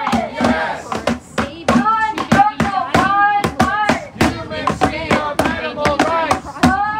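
A group of protesters chanting in unison, with quick, sharp percussive beats keeping time under the chant.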